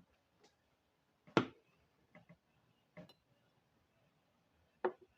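Kitchen handling sounds as cucumbers are sliced and put into a glass mason jar: a handful of separate knocks and light clicks, the loudest about a second and a half in and another near the end.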